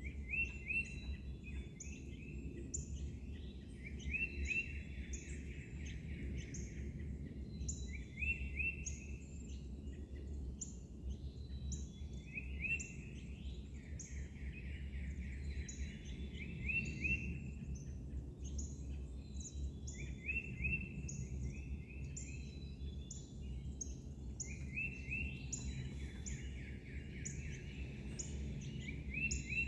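Songbirds singing in woodland at dawn. One bird repeats a phrase of a few clear notes running into a trill about every four seconds, among many short, high chirps, over a steady low rumble.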